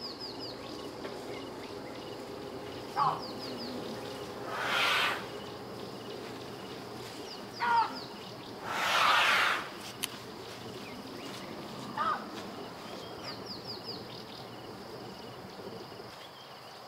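Nature ambience sound effect: short bird chirps and calls repeat every few seconds over a steady outdoor background, with two brief hissing rushes a few seconds in.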